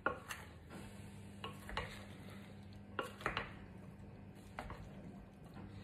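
Wooden spatula stirring pasta salad in a glass bowl: soft, irregular clicks and scrapes of the spatula against the glass as the chunky vegetables and shell pasta are turned over.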